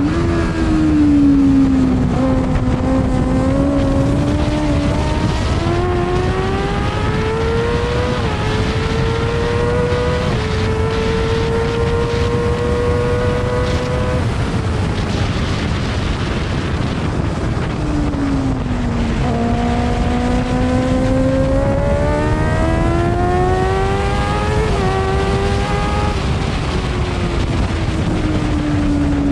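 F2 racing sidecar's engine heard onboard at race speed: its note climbs under hard acceleration, drops steeply about halfway through as the outfit slows for a corner, then climbs again and eases off near the end. A constant rush of wind and track noise runs beneath it.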